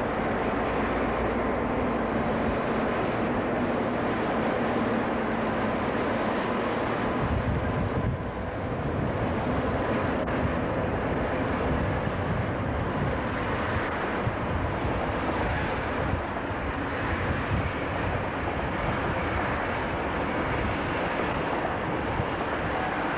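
Diesel locomotive engine running close by as it passes, a steady low hum under a broad rushing noise. About seven seconds in, the hum gives way to a rumbling, rushing noise with wind buffeting the microphone.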